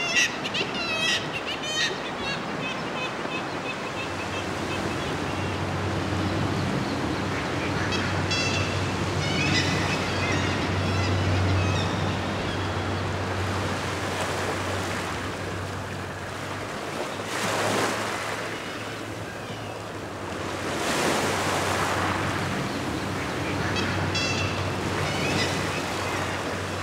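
Sea surging and breaking on rocks, swelling louder twice past the middle. Seabirds call in bursts of repeated short cries now and then. A steady low hum runs underneath.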